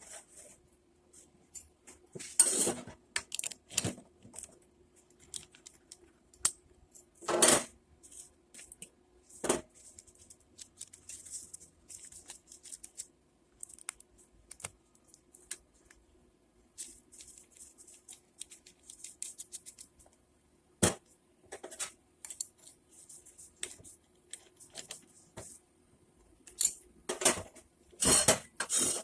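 Hand-polishing stainless steel pipe: irregular rubbing and scraping strokes against the metal, with scattered knocks and clinks, over a faint steady hum.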